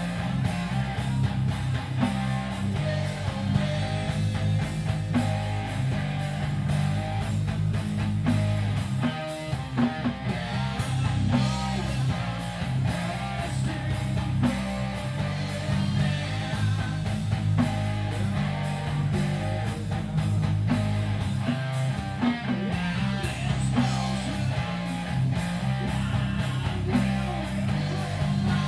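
Metal band playing live: electric guitar, bass guitar and drum kit, with a vocalist singing into a microphone.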